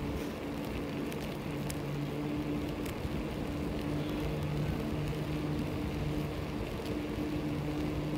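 Rolling noise of a bicycle ride on asphalt: a steady hiss of wind and tyre noise, with a steady low hum that drops out and returns a few times and a few faint clicks.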